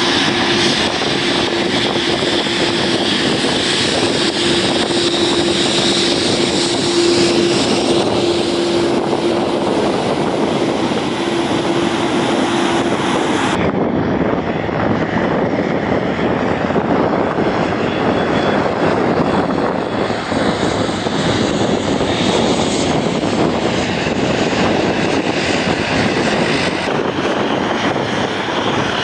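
Helvetic Airways Embraer regional jet taxiing close by, its turbofans running with a steady hum and a high whine. About halfway through it cuts to a Eurowings Dash 8 Q400 turboprop taxiing, its six-bladed propellers turning with a dense, steady rush, and near the end to the jet engines of an Air Europa Boeing 737 taxiing.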